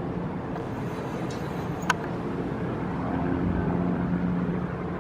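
Steady low outdoor rumble with a faint hum, and a single sharp crack about two seconds in.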